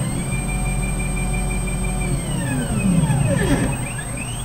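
Stepper motors of a belt-driven CNC gantry whining as the thread-laying head moves. The pitch rises as the axis speeds up, holds steady for about two seconds, falls as it slows, then rises again near the end as the next move starts.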